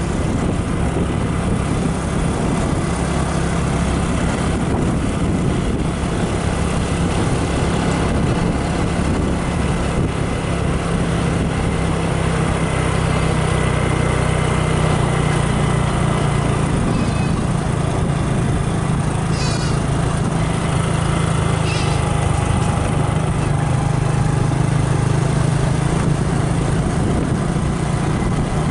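Motorbike engine running steadily while riding, its low engine note holding almost constant, with a few short high chirps over it around the middle.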